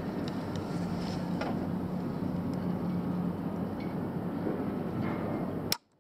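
Outdoor harbour ambience: a steady low mechanical hum with wind on the microphone and a few faint ticks, ending near the end in one sharp click as the sound cuts off abruptly.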